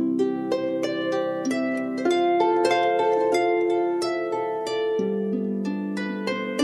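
Calm instrumental music: a flowing run of plucked notes over held lower notes, a few new notes each second.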